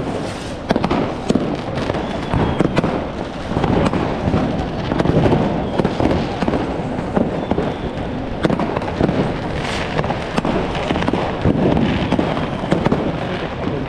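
Many fireworks and firecrackers going off at once: a dense, unbroken crackle of bangs and pops with no pauses.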